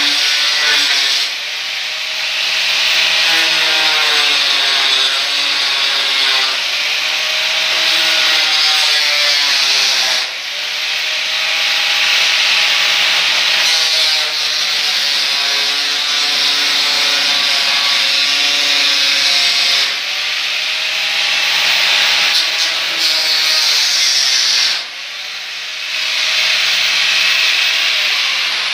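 Handheld angle grinder cutting through ceramic wall tiles in long passes with brief dips between them. Its motor whine sags and recovers in pitch as the disc bites into the tile.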